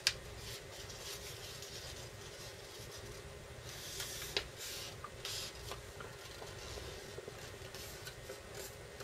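Sheet of paper being handled and creased by hand, with a few soft rubbing, scraping rustles over a steady low hum.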